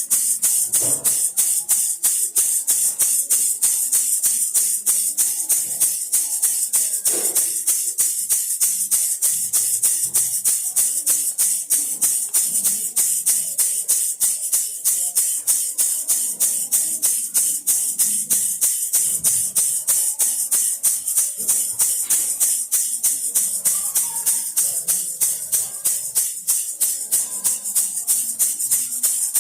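A baby rattle shaken in a steady fast rhythm, about four crisp shakes a second.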